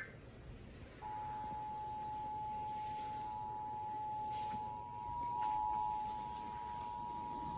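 Emergency Alert System attention signal: the standard two-tone alert of 853 Hz and 960 Hz sounding together, steady and unbroken, starting about a second in after a brief pause.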